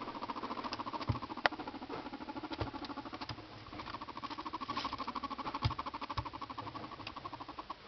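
Guinea pig purring while being stroked: a steady, fast pulsing purr of about ten pulses a second, with a few soft knocks from the handling. The purr stops near the end.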